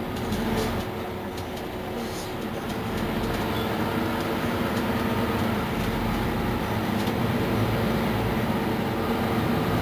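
Mercedes-Benz Citaro C2 city bus running, a steady engine hum that grows louder over the first few seconds and then holds.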